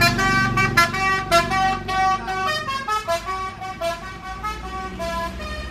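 Bus's musical multi-tone horn playing a quick tune of short notes that step up and down in pitch, over a low engine rumble. It grows fainter toward the end.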